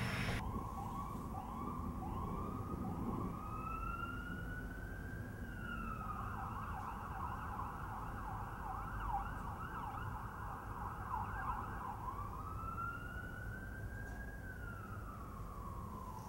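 Emergency vehicle siren passing through its modes: a slow rising and falling wail, switching about six seconds in to a fast yelp, then back to a slow wail near the end.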